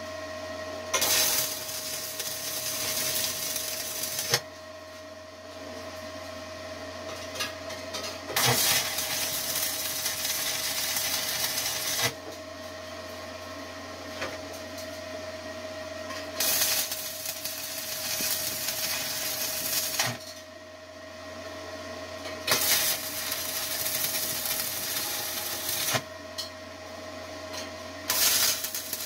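Stick welding with 3/32-inch 6013 rods on 1/8-inch steel plate, on a Forney 100ST welder at 75 amps: the arc crackles in runs of three to four seconds, five times, each beginning and ending abruptly. A steady hum runs underneath between the welds.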